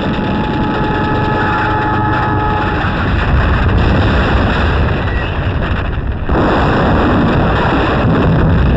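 Loud, continuous roar of battle noise on an old combat film soundtrack, engines and blasts blurred into one rumbling wash, with thin whining tones over it for the first three seconds. About six seconds in the sound dips briefly and then comes back abruptly.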